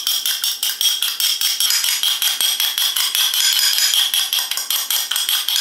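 A fork beating egg in a small cut-glass bowl: a rapid, even run of clinks, about eight a second, as the tines strike the glass, with a bright ring.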